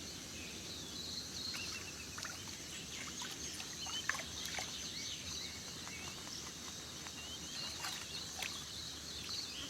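Waterhole ambience: many short, high bird chirps and calls scattered over a steady low hiss, with a few faint sharp ticks.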